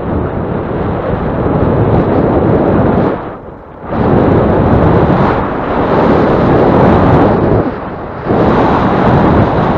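Wind buffeting the bike-mounted camera's microphone while riding, a loud, steady rush that eases off briefly about three seconds in and again near eight seconds.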